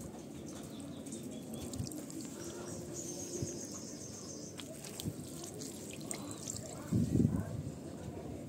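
Faint trickling and dripping water with a few light clicks, and a brief muffled rustle about seven seconds in.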